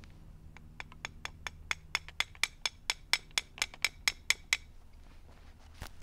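A metal rod tapping rapidly against the hot cast copper ingot and its mold, about four to five sharp, ringing clinks a second that grow louder, then stop; a single louder knock follows near the end as the ingot is tipped over.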